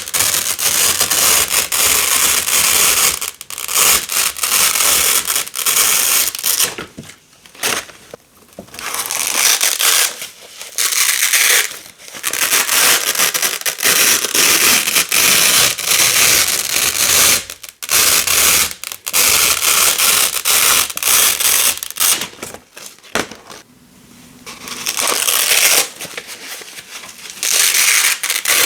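Black hook tape being pulled apart from coloured loop tape (Velcro) again and again: long runs of crunchy crackling ripping, broken by short pauses.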